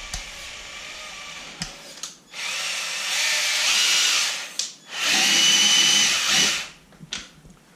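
Traxxas TRX-4 RC crawler's electric motor and geared drivetrain whirring with a steady whine as the wheels spin freely in the air. There are two throttle bursts of about two seconds each, with a short gap between. This is a bench test of the drivetrain after the diff locks were checked.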